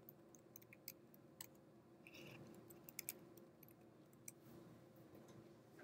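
Faint, irregular clicks of computer keyboard keys as a command is typed, over a low steady room hum.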